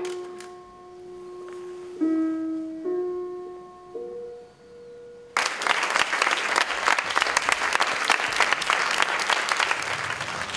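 A few sustained musical notes from the film's opening soundtrack, one after another. They cut off suddenly about five seconds in, and a cinema audience breaks into steady applause.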